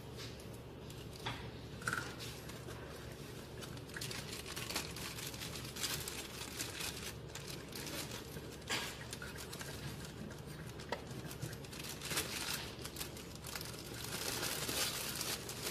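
Clear plastic protective wrap crinkling and crackling as it is handled and pulled off a microscope's stage, in many short irregular rustles.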